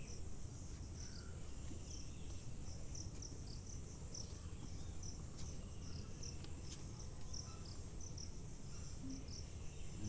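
Insects chirping in a steady rhythm, short high chirps about twice a second, over a faint low rumble of background noise.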